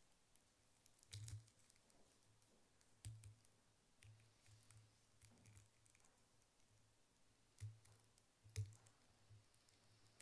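Near silence: quiet room tone with a few faint, short clicks and taps scattered through it, the clearest about a second in, about three seconds in, and two close together near the end.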